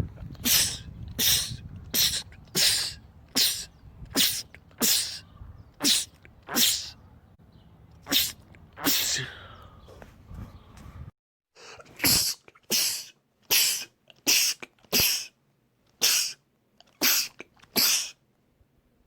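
A man sneezing over and over in quick succession, short sharp sneezes a little under a second apart: about a dozen over a low background hum, then the hum cuts off suddenly and about ten more follow.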